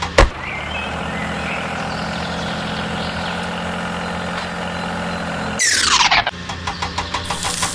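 A vehicle engine running steadily with a low hum. There is a sharp click just after the start, and a loud falling swoosh about six seconds in, after which a rapid knocking engine rhythm resumes.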